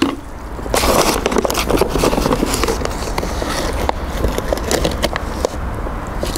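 Trowel scraping and scooping calcium aluminate cement powder out of its bag and tipping it into a plastic bucket of water: a dense run of scrapes and small crackles.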